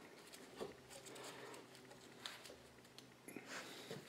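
Faint, occasional clicks of metal parts as a Ford power steering gearbox is handled and its recirculating-ball rack piston is worked out of the housing.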